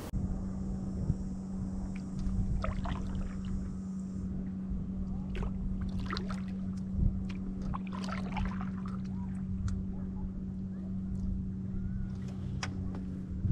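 Canoe paddling: irregular splashes and drips of water off the paddle, over a steady low hum.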